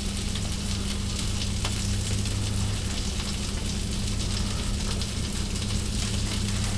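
Hamburger patties frying in a cast iron skillet: a steady sizzling hiss with a few faint crackles, over a low steady hum.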